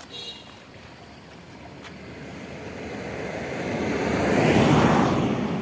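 A road vehicle driving past, its noise growing steadily louder to a peak about four and a half seconds in and then fading away.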